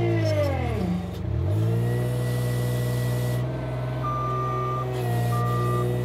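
Bobcat L28 small articulated loader's diesel engine working, its speed sagging and climbing back about a second in, then running steadily. Near the end its backup alarm beeps twice as the loader reverses.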